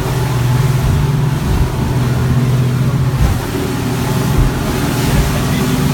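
Motor yacht's engine running with a steady low drone, over a continuous rushing noise of wind and water.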